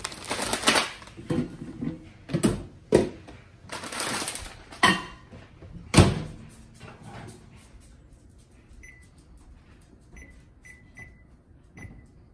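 Clattering and rustling as things are handled, with a loud knock about six seconds in. In the second half, a microwave oven's keypad beeps briefly at one pitch, five times, as the cook time is keyed in.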